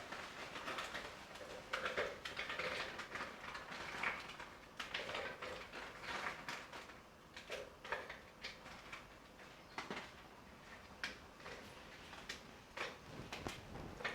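Marie biscuits being crushed for a tart base: irregular crunching and crackling with many sharp clicks.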